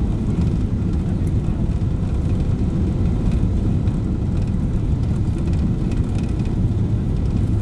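Steady low rumble of cabin noise inside a Boeing 777-300ER descending on approach, its GE90 engines and the airflow over the fuselage heard from a window seat by the wing.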